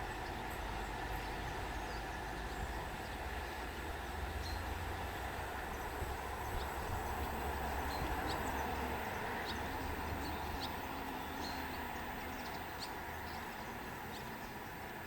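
Train hauled by an SM42 diesel locomotive running on the track: a steady low rumble that eases slowly near the end, with a few faint bird chirps.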